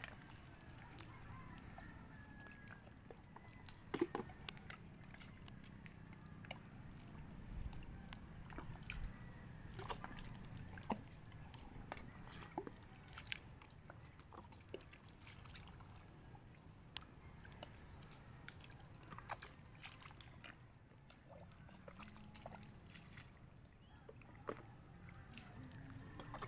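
Boots and a gloved hand working in wet mangrove mud: faint squelching and sloshing with scattered sharp little clicks and pops, the loudest about four seconds in.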